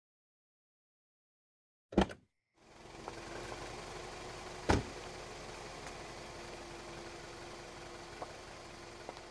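Silence, then two sharp thuds in quick succession about two seconds in, followed by a steady hiss with a faint steady hum and one more heavy thud a little before the middle.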